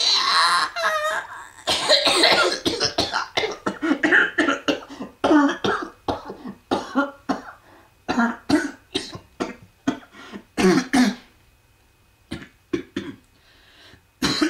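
A person coughing repeatedly and clearing their throat, the coughs coming in quick runs. They thin out and grow quieter after about eleven seconds.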